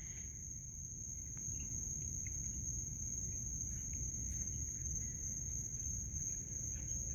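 Crickets chirring in a steady, unbroken high-pitched chorus, over a low background rumble, with a few faint clicks.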